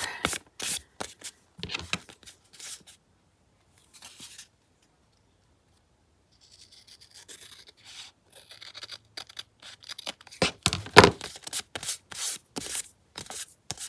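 Paper being handled and rubbed on a craft table: short crisp rustles and taps, a quiet spell in the middle, then a run of louder rustles near the end.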